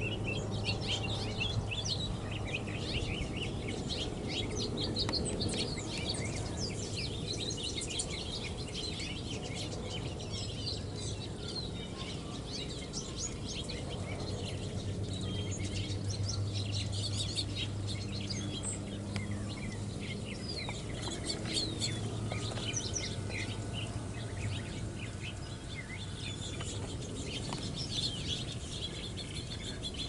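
Many small wild songbirds chirping and twittering, with quick overlapping calls that never stop, over a steady low hum.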